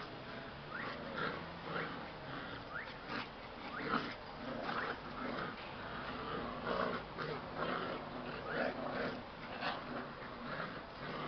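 Two puppies making short growls and yelps in quick succession while tugging at a rope toy in play.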